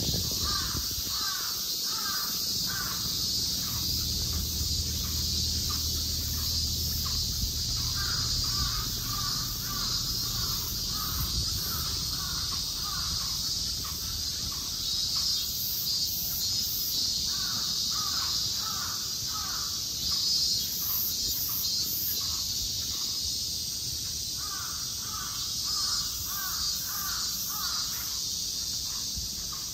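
A crow cawing in four runs of quick repeated caws, over a steady high-pitched drone of insects.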